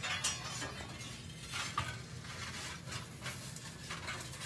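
Irregular scraping and crackling at a wood-fired pizza oven, a run of short rasping strokes at uneven intervals.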